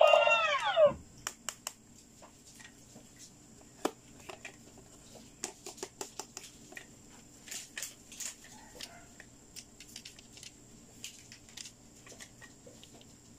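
An electronic quick-push pop-it game plays a falling electronic tone for about a second, then gives scattered light clicks and taps as fingers press its silicone bubble buttons and handle the plastic body.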